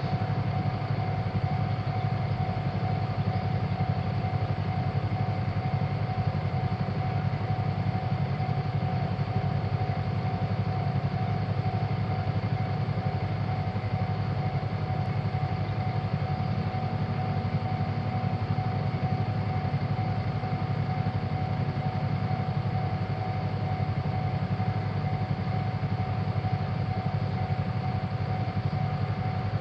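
Japanese railroad crossing warning bell sounding without a break over a steady low rumble.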